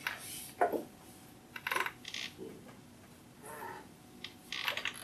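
Dry-erase marker squeaking and tapping on a whiteboard while lines are drawn, in short scattered strokes.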